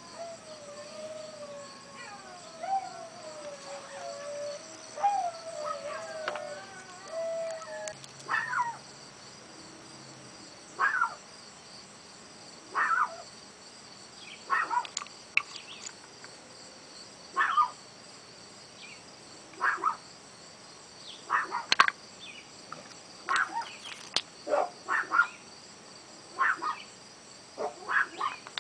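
Pet dogs whining and howling in wavering, pitched calls for the first several seconds. Then a year-old Chihuahua alone gives short, high yips every second or two, coming faster near the end.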